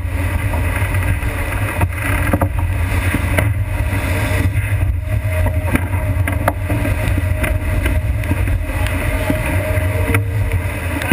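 Sailboat sailing hard through rough water: wind buffeting the microphone and water rushing and spraying past the hull, a loud, steady rumble with a few brief knocks.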